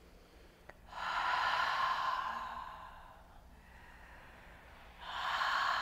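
A person's long, audible breaths close to the microphone during a held yoga forward fold: two breaths of about two seconds each, the second starting near the end.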